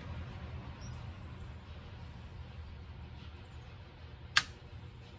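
Small hand work on the rear body panel of a car: one sharp click about four seconds in, as a small part is fastened, over a low steady background hum.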